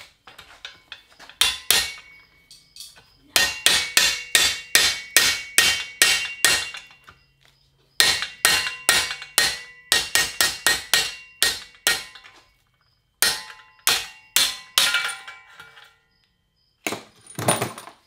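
A hammer striking metal BMX bike parts. The blows come in runs of quick, sharp strikes, about three to four a second, each with a metallic ring, and short pauses between the runs.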